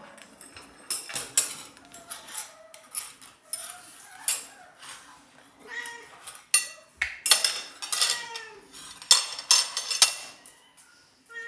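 A spoon knocking and scraping against a dish in a string of sharp clinks, handled by a parrot, with short chirping calls from the parrot in between.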